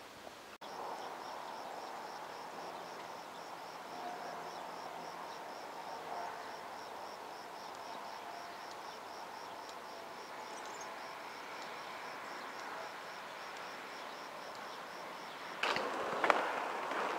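An insect chirping in a high, even rhythm of about three chirps a second. Near the end it gives way to louder rustling and knocking.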